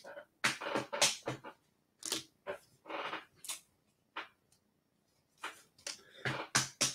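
Short, irregular crinkling and tearing of packaging: a basketball-card blaster box and its wrappers being torn open by hand, in several scratchy bursts.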